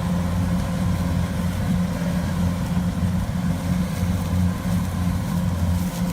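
Rice harvesting machine's engine running steadily at idle, a low, even hum.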